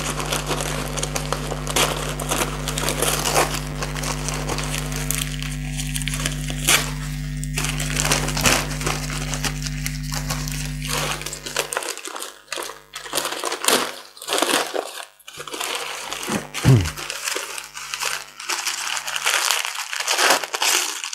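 Brown kraft paper packaging crinkling and rustling as it is handled and unwrapped, in irregular bursts throughout. A steady low hum underneath stops about twelve seconds in.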